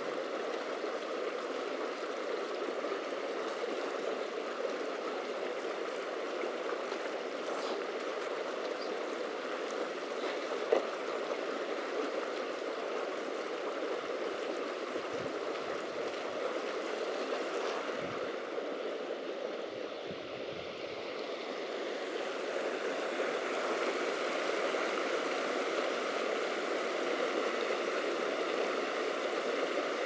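Mountain stream rushing steadily, with one sharp click about eleven seconds in.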